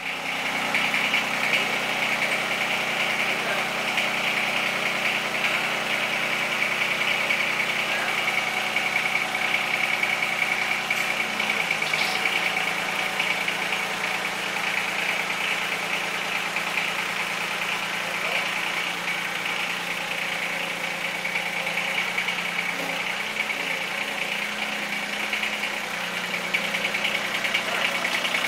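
John Deere compact tractor engine running steadily at idle, with a steady high whine over it; its note shifts slightly lower about twelve seconds in.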